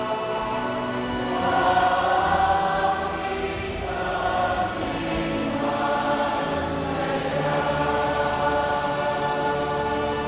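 Church choir singing a responsorial psalm, in long held chords.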